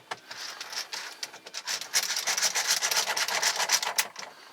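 Scraping and rubbing of metal and plastic parts with small ticks as the car radio unit is worked into place in the dash. It is faint at first and louder from about two seconds in.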